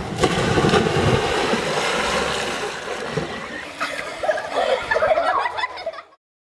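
Children jumping into a swimming pool: a continuous splashing and churning of water that fades out near the end.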